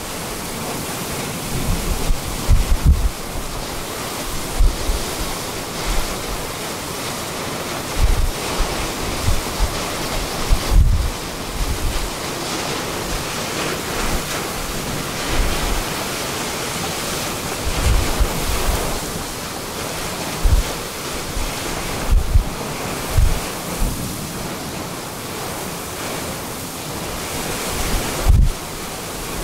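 Strong storm wind near a tornado: a steady rushing hiss, with irregular gusts buffeting the microphone every few seconds.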